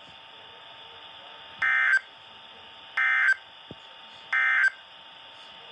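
Three short, identical bursts of screechy digital data tones, about a second and a half apart, over faint radio hiss: the NOAA Weather Radio SAME end-of-message code that closes an Emergency Alert System warning broadcast.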